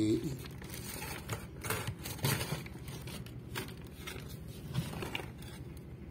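Hands rummaging in a lifeboat's storage locker, pulling out an orange lifebuoy line among plastic-bagged flares: irregular rustles, crinkles and light knocks, over a low steady hum.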